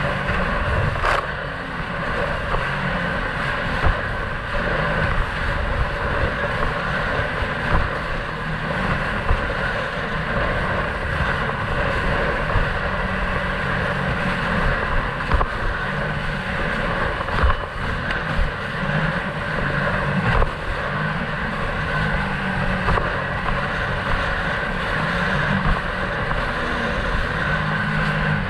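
Sea-Doo jet ski engine running steadily at speed, with wind on the microphone and occasional thuds.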